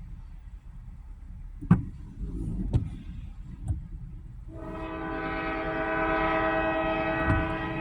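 Diesel freight locomotive's air horn sounding one long, steady blast that starts a little past halfway in, over a low rumble. Two sharp knocks come earlier, before the horn.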